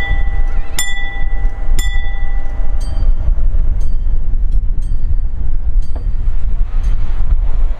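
A train passing close by with a loud, low rumble, while a ringing, bell-like strike repeats about once a second, growing fainter after about three seconds.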